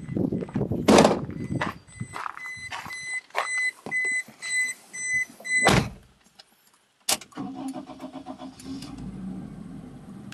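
Car warning chime beeping rapidly amid door-handling thumps, until a car door shuts with a loud thump about six seconds in and the beeping stops. About a second later the Toyota Cami's engine starts quickly and settles into a steady idle.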